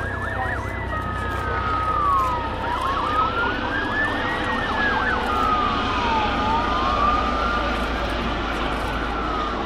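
Emergency-vehicle siren wailing, sliding slowly up and down about every three and a half seconds, with a second steady siren tone held for a couple of seconds twice. Underneath runs a steady low drone from helicopters flying overhead.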